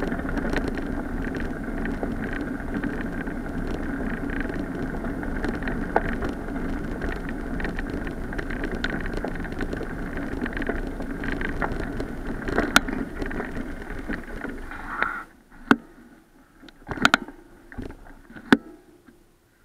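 Bicycle rolling along a gravel path: a steady rumble of tyre noise and rattling, with scattered clicks. About fifteen seconds in the bike comes to a stop and the rumble falls away, leaving a few sharp knocks.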